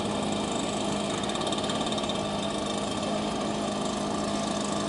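Small-engine blower driving a canoe, running steadily at an even speed with a constant engine drone and blowing air.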